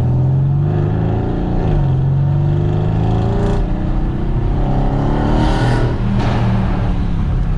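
Twin-turbo V8 of a Mercedes-AMG C63 S with upgraded turbos accelerating at full throttle. The revs climb, drop at an upshift just under two seconds in, climb again and drop at another upshift about six seconds in.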